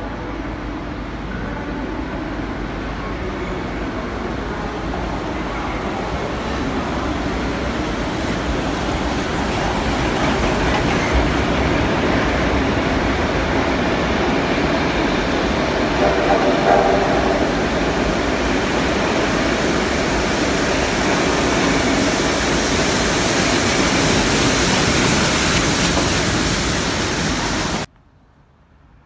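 Steam train with red wooden carriages rolling through a station platform, wheels and carriages passing close by in a steady, loud, noisy rumble that builds over the first half. Near the end the sound cuts off suddenly to a much quieter background.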